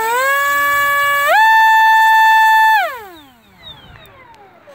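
Electric ducted fan of an RC jet run up on the ground by the throttle: a loud, steady high whine that steps up to a higher pitch about a second in, then is cut a little under three seconds in and winds down, falling in pitch. The pack has already flown about five minutes.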